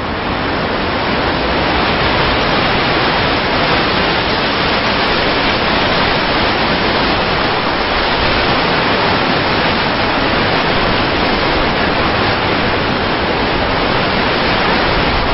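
Blizzard wind sound effect: a loud, even rushing hiss that swells over the first two seconds, then holds steady.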